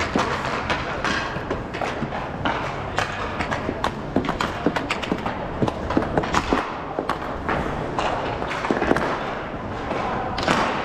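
Roller hockey play: irregular sharp clacks and thuds of sticks, puck and skates on the rink floor, over a steady background noise.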